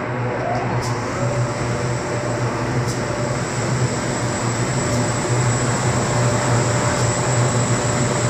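Karunya corrugated-board printer-slotter machine running, a steady mechanical drone with a constant low hum and a faint high whine.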